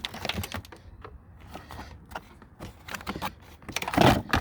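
Plastic interior trim and wiring being handled: irregular small clicks and light rattles, with a louder clatter about four seconds in.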